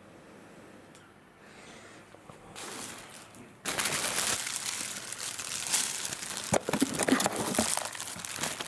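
Packaging crinkling and rustling as it is handled. It is quiet at first, comes in faintly, then turns loud and crackly with sharp clicks a little under halfway through.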